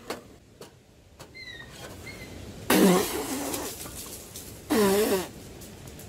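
Young goat bleating twice, about two seconds apart, the first call a little under a second long and the second shorter.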